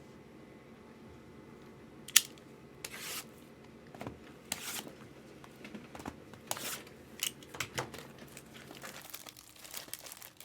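Trading-card packaging being torn open and crinkled by hand: after a quiet start, a run of short, irregular plastic crackles and rips.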